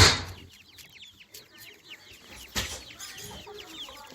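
A group of chicks peeping constantly in short, high, falling chirps. A sharp knock sounds right at the start and another about two and a half seconds in.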